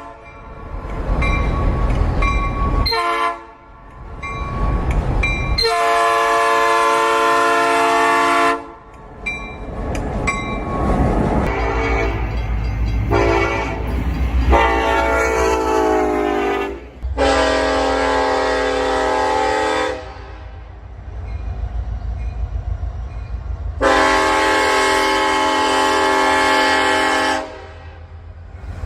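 Locomotive air horns sounding a series of blasts, several steady chords of about three seconds each with shorter toots between, over the low rumble of a train.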